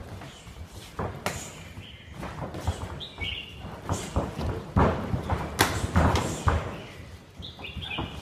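Muay Thai sparring: gloved punches and shin kicks landing on gloves and shin guards, a string of sharp thuds that come fastest and strongest in the middle, with bare feet shifting on the ring canvas.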